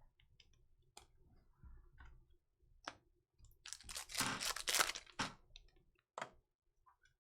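Trading cards and their packaging being handled on a table: scattered light clicks and taps, with a loud crinkling rustle of plastic or foil wrapper about four to five seconds in.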